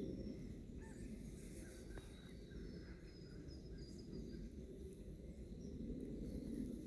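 Quiet rural outdoor ambience: a steady low noise with faint, scattered bird chirps and thin high calls.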